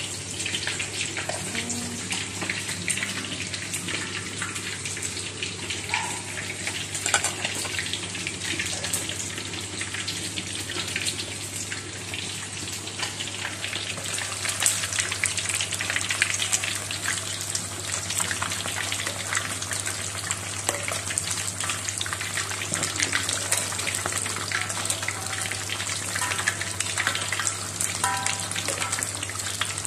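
Whole tilapia deep-frying in hot oil in a wok: a dense, steady sizzle full of fine crackles and pops, over a steady low hum.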